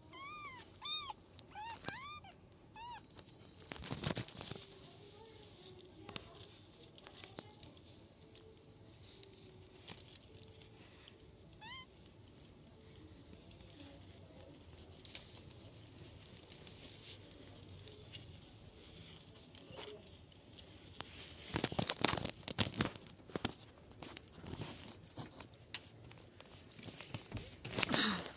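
Very young kittens mewing: a quick run of thin, high cries rising and falling in the first three seconds, and one more rising mew about twelve seconds in. Short rustling, handling noises come around four seconds, twice more about three quarters through, and again near the end.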